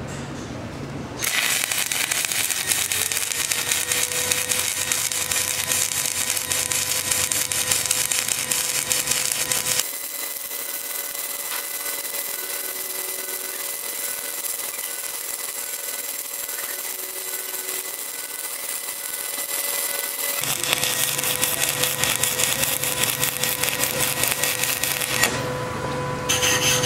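Stick welding arc from an HTP Inverarc 200 TLP inverter welder burning a 7018 rod in pulse-stick mode: a steady, loud crackling hiss that starts about a second in. It is thinner for about ten seconds in the middle and breaks off about a second and a half before the end.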